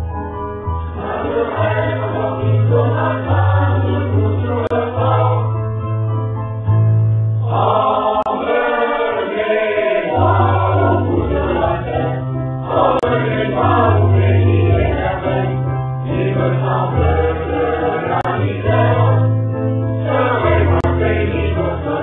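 Background music: a choir singing over low bass notes that change every second or so.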